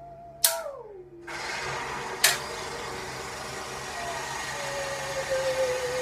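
A singing saw's wavering note is cut by a sharp knock about half a second in and slides down in pitch as it dies away. A hydraulic jackhammer then starts a steady rattle, with another sharp knock about two seconds in. Near the end the saw comes back in on a long held note that dips and then rises slightly.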